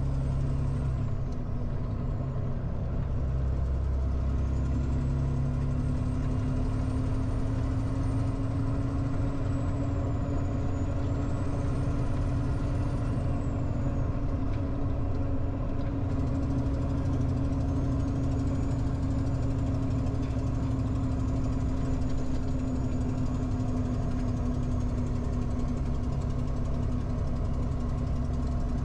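A heavy truck's diesel engine running steadily while driving, heard from inside the cab, with a constant engine drone over road rumble. A faint high whistle wavers up and down in pitch through the first half.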